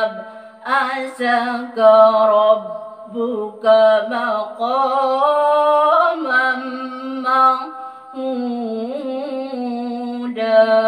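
A woman reciting the Quran unaccompanied in the melodic qiroah (tilawah) style. Her voice holds long notes, wavering and bending through ornaments, with short breaks for breath between phrases.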